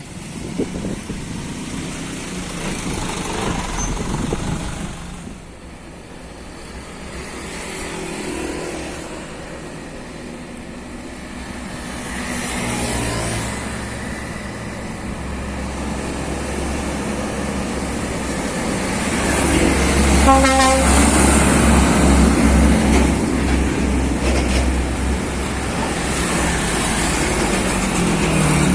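Heavy Scania trucks' diesel engines running past on the road, growing louder about two-thirds of the way in, with one short horn toot at about the same point.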